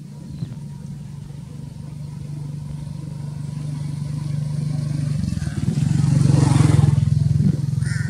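A small engine running at a steady pitch, growing louder over several seconds as it comes closer, loudest about six to seven seconds in, then dropping back a little.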